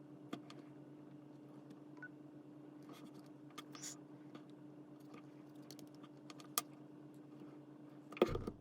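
Faint scattered clicks and taps, with a short scratch about four seconds in, over a steady low hum. Music starts loudly right at the end.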